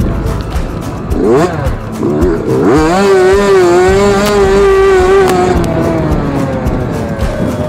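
Yamaha YZ65 two-stroke dirt bike engine revving: a quick rise and drop about a second in, then climbing to high revs held for a couple of seconds before slowly easing off.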